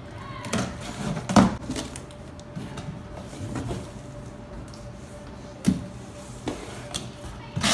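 Cardboard box being handled and its top flap pulled open: scattered scrapes and knocks of cardboard, the loudest about a second and a half in and another near six seconds.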